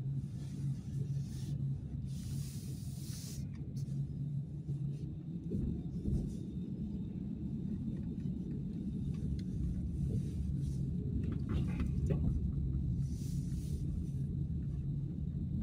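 Car engine and tyre noise heard from inside the cabin while driving slowly: a low steady rumble with a hum, broken by a few short bursts of hiss.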